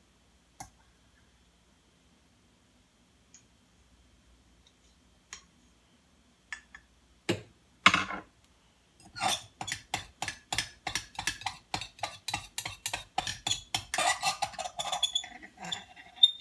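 A spoon clinking against the inside of a dish in fast, even strokes, about four a second, as something is stirred. A few scattered knocks and taps come before the stirring starts, about nine seconds in.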